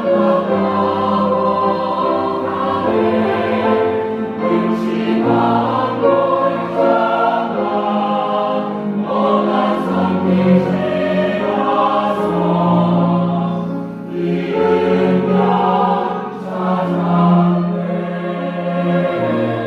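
Church choir singing a sacred anthem in parts, holding sustained chords that change every second or two.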